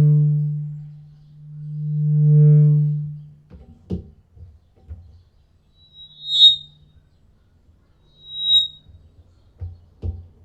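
Vocal microphone feeding back through a floor monitor: a low howl swells up and dies away twice, then short high-pitched squeals ring out twice. A couple of knocks from the mic being handled come in between.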